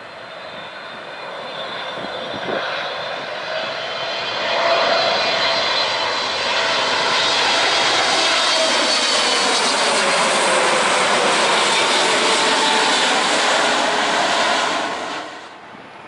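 Boeing 777-300ER's GE90 jet engines on landing approach, passing low overhead: jet noise that builds over several seconds and holds loud, with whining tones falling in pitch as it goes by. It cuts off suddenly near the end.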